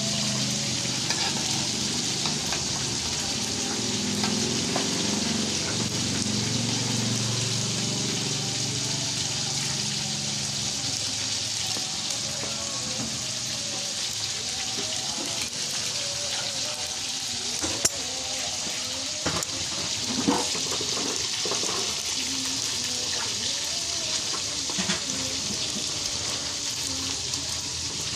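Food frying in hot oil in an aluminium wok, a steady sizzle, with a few sharp clicks of a metal spatula against the wok a little past the middle.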